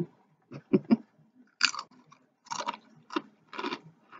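Crunching and chewing on Kroger spicy chili and lime rolled tortilla chips: a run of short, separate crunches, roughly two a second, with small gaps between.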